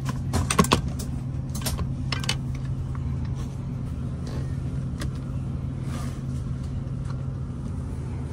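Steady low drone of an airliner cabin with the Airbus A340's engines running, with several sharp clicks and clinks in the first two and a half seconds.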